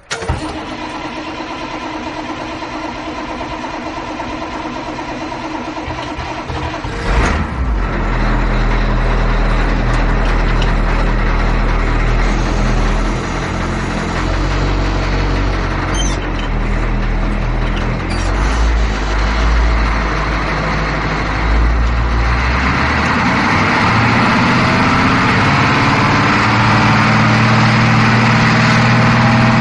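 Bus engine starting: a steady hum, then about seven seconds in the engine catches with a loud low note and settles to a steady run. From about 22 seconds in it speeds up, rising in pitch as the bus gets under way.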